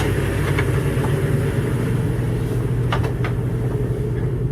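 Motor cruiser's inboard engine running steadily, heard as a muffled low hum inside the aft cabin behind a shut soundproof door. A couple of faint light clicks about three seconds in.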